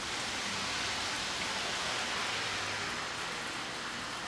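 Steady, even hiss of rain falling on snow-covered ground and cars, with a faint low hum underneath.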